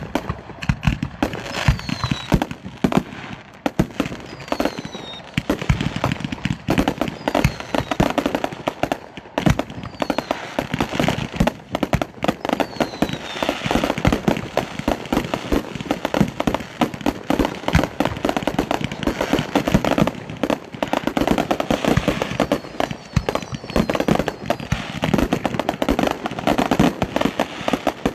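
Consumer fireworks cakes firing continuously: a dense, unbroken barrage of launch thumps and bursting pops and bangs, with a few faint falling whistles now and then.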